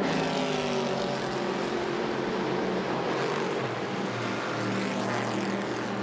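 Race car engine drone: a steady sound with several held tones over a rushing hiss. It cuts in abruptly at the start, and a deeper tone joins a little over halfway through.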